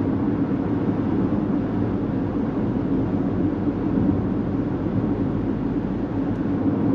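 Steady low-pitched road noise of a car cruising at highway speed, heard from inside the cabin: tyre and engine drone with no change in speed.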